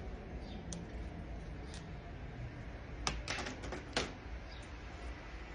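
Small sharp clicks and taps of tools and parts on an opened iPhone 11 as its display and speaker connectors are unclipped: a few single clicks, then a quick cluster of them about three to four seconds in.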